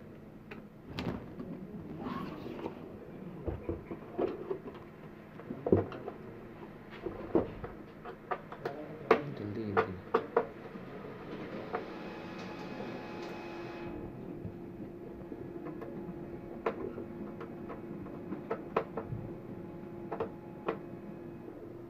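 Hands handling a DVR unit and its hardware: irregular clicks, knocks and rattles of plastic and metal parts. A little past halfway comes a scraping hiss lasting about two seconds, after which a steady low hum runs under fewer, sparser clicks.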